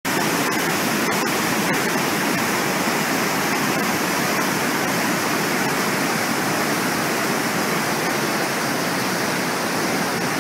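Steady rushing of a flood-swollen river pouring over a weir and through churning rapids, a constant even noise that cuts in abruptly at the start.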